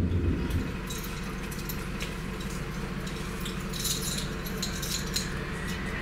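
The low turboprop rumble heard inside the Jetstream 41 cabin fades out within the first half second. It gives way to airport apron ambience: a low steady hum with scattered light clinks and rattles, and a faint rising whine in the second half.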